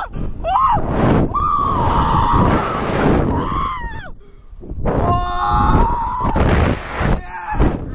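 Two riders on a SlingShot catapult ride screaming in long, wavering held screams that overlap at times and break off briefly about four seconds in. Wind rushes over the ride-mounted microphone underneath.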